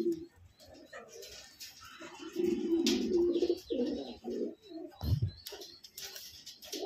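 Fantail pigeons cooing: a low, held coo about two seconds in, breaking into shorter pulsed coos, with more cooing near the end. A brief low thump about five seconds in.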